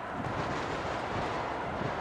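Wind buffeting the microphone, a steady rushing noise with uneven low thumps.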